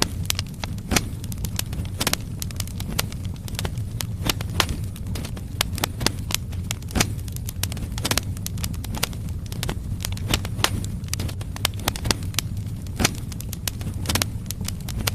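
Firewood burning in a fireplace: irregular sharp crackles and pops, several a second, over a steady low rumble of the fire.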